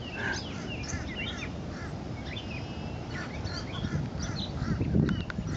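Several birds chirping and calling in short, quick rising and falling whistles over a low steady rumble.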